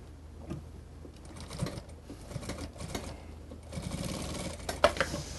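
Industrial sewing machine stitching through mink fur in short stop-start runs of rapid, even strokes, with a couple of sharp clicks near the end.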